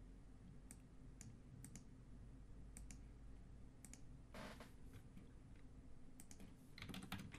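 Faint, scattered clicks of a computer mouse and keyboard keys, with a brief soft rustle about four seconds in and a quick run of clicks near the end.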